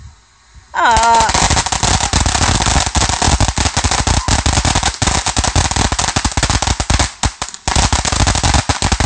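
A ground-level consumer firework breaks into a loud, dense crackle of rapid pops about a second in, like a long string of firecrackers, with a short lull a little before the end. A person's voice rises briefly as the crackling starts.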